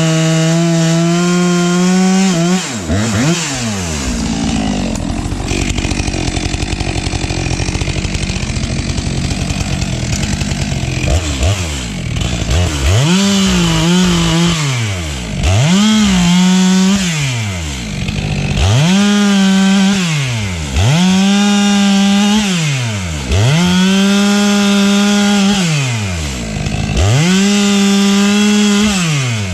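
STIHL MS 462 two-stroke chainsaw running at full throttle, then dropping to a rough idle about two and a half seconds in. From about twelve seconds on it is throttled up and released about seven times in a row, each burst held a second or two at a steady high pitch.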